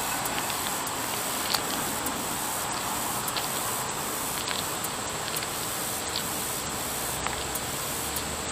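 Steady outdoor hiss with a continuous high-pitched insect drone and scattered faint clicks. Near the end a low rumble starts as the distant locomotive draws closer.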